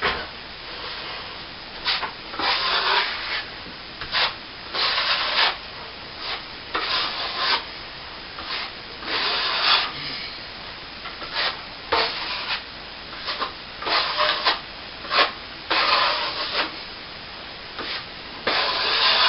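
Steel plastering trowel scraping over a cornice-cement ceiling patch during the final polish. It makes repeated short and longer strokes every second or two as it smooths the surface and takes off build-up where the patch meets the paint.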